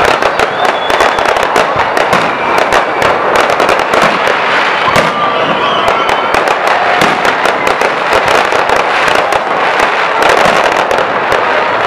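Fireworks going off in rapid succession: aerial shells and rockets bursting, a dense, continuous crackle of overlapping bangs.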